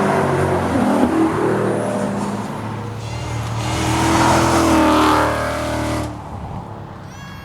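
Ford Mustang engine under load, its pitch climbing from about three seconds in, then dropping away suddenly about six seconds in as the throttle comes off.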